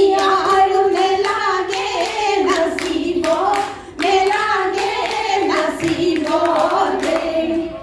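Women singing a Jeng Bihu folk song into microphones, with sharp hand claps keeping the rhythm. The singing dips briefly about four seconds in.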